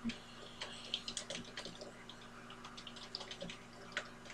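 Typing on a computer keyboard: a run of irregular keystroke clicks as a short phrase is typed.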